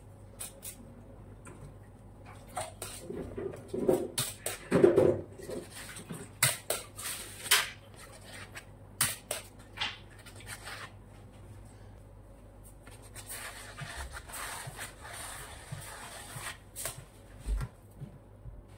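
A metal icing spatula and scraper working whipped cream over a cake: soft scraping with many sharp clicks and taps as the tool knocks against the cake board, and a few louder knocks about four to five seconds in.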